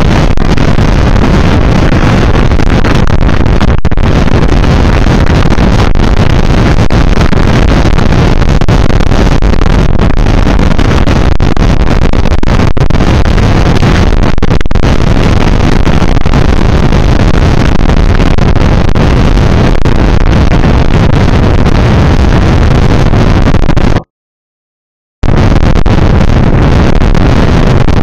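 Loud, steady wind rumble on the microphone of a handlebar camera on a moving bicycle, with a sudden silent dropout of about a second near the end.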